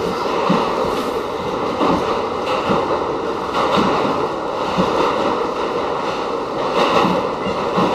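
Westinghouse R68 subway car running along the track, heard from inside the car: a loud, steady rushing rumble with faint irregular ticks.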